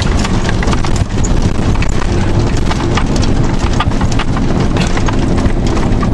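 Fire truck driving along a road, heard from inside the cab: the diesel engine and tyre noise run steadily under a constant clatter of rattling and knocking cab fittings.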